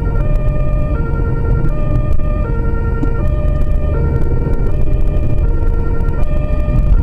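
The vehicle's own German two-tone emergency siren (Martinshorn) alternating between a high and a low note, changing about every 0.7 s, heard from inside the cab over steady engine and road rumble.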